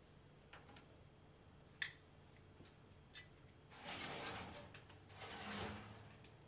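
Faint clicks of metal fire tongs and paper rustling as a folded paper packet is fed into a wood fire: a few sharp clicks, then two rustling swells of about a second each near the middle.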